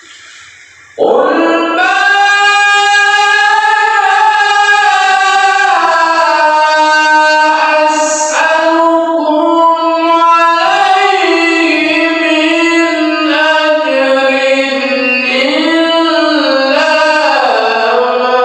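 Melodic Quran recitation (tilawah) by a male qori: a single voice starts about a second in and holds long, high melodic notes with wavering ornaments.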